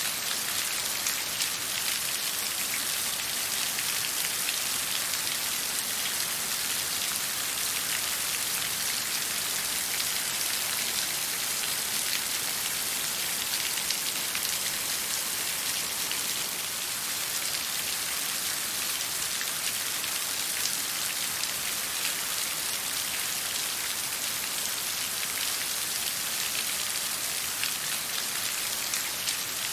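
Steady water sound: a dense, even hiss of countless fine drops and splashes, constant throughout, mostly high in pitch.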